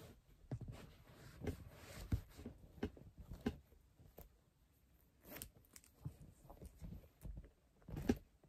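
Fabric rustling and soft irregular knocks as a zip-up fleece vest is pulled onto a reborn doll and its zipper is fiddled with to fasten it.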